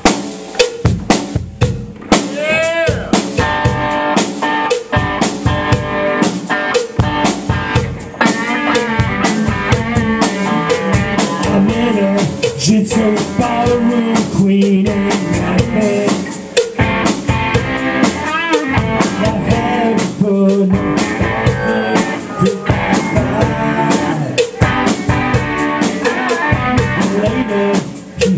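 Live rock band playing a song on drum kit and electric guitars. It opens on hard drum hits, and the full band comes in about two seconds in.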